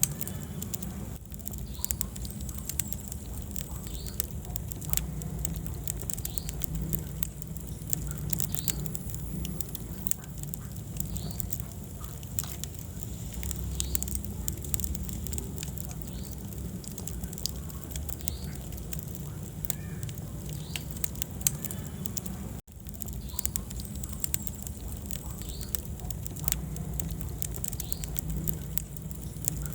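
Wood fire crackling: a dense run of sharp pops and snaps over a low, steady rumble of flame. The sound cuts out for an instant about two-thirds of the way through.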